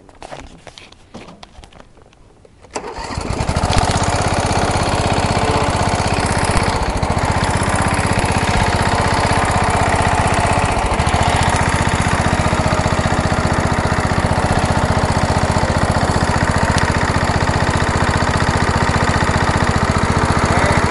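Small engine of an off-road MTD riding lawnmower catching about three seconds in and then running steadily.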